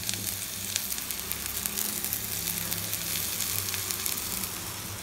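Chopped green beans and onion sizzling steadily in oil in a steel kadai, with a few light clicks of a metal spatula against the pan. The beans are being sautéed so they cook through and lose their raw taste.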